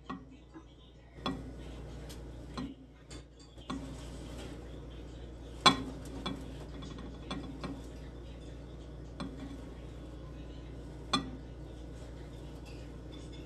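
Scattered sharp clicks and knocks of tableware around a soup bowl over a low steady hum, with the two loudest knocks about halfway through and near the end.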